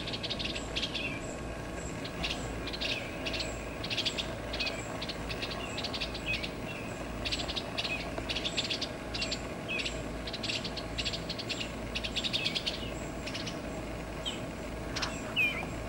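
Eastern bluebirds calling in quick chattering bursts, over and over, over a steady low hum: the adults calling at the nest box, which the owner takes for the parents trying to call the young out to fledge.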